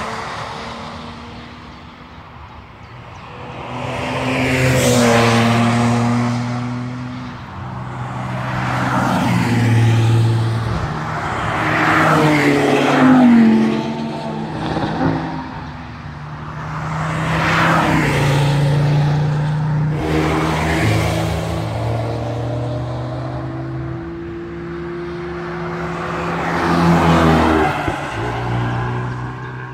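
Cars passing one after another at speed on a race circuit, engines pulling at high revs. Each car's sound rises, then falls in pitch and fades as it goes by, about six pass-bys in all.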